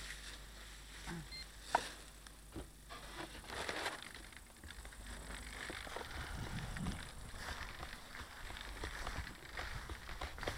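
Faint rustling and handling noise with a few sharp clicks, the clearest about two seconds in, over a low rumble.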